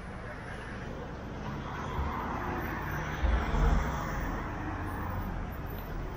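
Street traffic: a car passing, its tyre and engine noise swelling and fading about two to four seconds in, over a steady background of city traffic.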